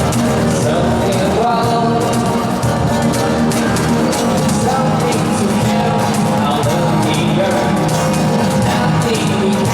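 Rock band playing live: guitars and drums with a sung lead vocal over them, loud and steady throughout.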